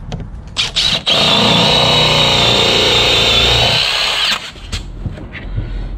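Power drill boring a 1 3/8-inch Forstner bit into a wooden rail to cut out a mortise. It starts about a second in, runs steadily for about three seconds and stops.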